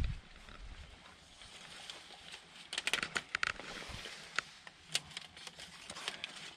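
Quiet handling noise from work on metal siding and its foam closure strip: a soft thump at the start, a quick cluster of light clicks and crinkles around the middle, then a few single ticks.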